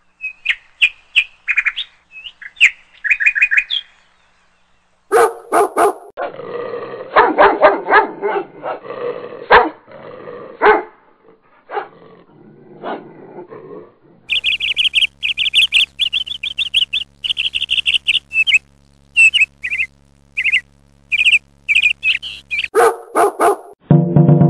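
Puppies yipping and barking across several short clips. There are high squeaky yips in the first few seconds and lower, fuller barks around the middle. Through the second half come quick runs of high chirping squeaks over a low steady hum, and music comes in near the end.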